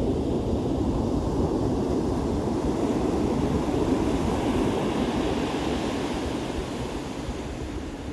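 Ocean surf breaking and washing up a beach, with wind rumbling on the microphone. The wash swells about halfway through and eases off near the end.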